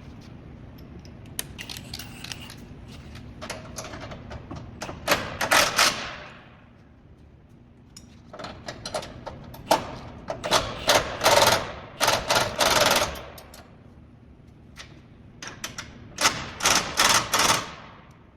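A tool driving the crash bar's mounting bolts: three spells of rapid mechanical clattering, each one to two seconds long, with pauses between.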